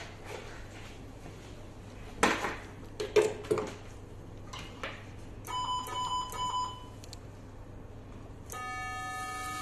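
Knocks and clicks as the sealing instrument's plug is pushed into the electrosurgical vessel-sealing generator, then a quick run of short electronic beeps from the generator. About a second before the end, a steady tone of several notes begins: the generator's activation tone while it delivers sealing energy.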